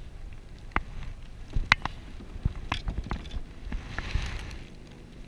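Scattered sharp clicks and knocks from handling a freshly caught yellow perch on its lure over a plastic kayak, with wind and water rumbling underneath.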